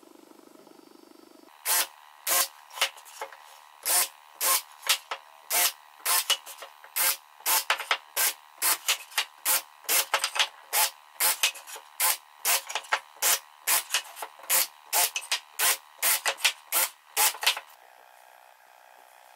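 Cordless drill with a countersink bit running in short, sharp bursts, about two a second, as it bores and countersinks holes in hardwood strips. The bursts start about two seconds in and stop shortly before the end.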